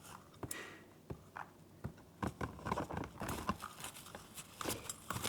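Light, irregular clicks, taps and scratches of two small conures' claws and beaks as they clamber about on the carrier and its wooden perch, with some faint rustling.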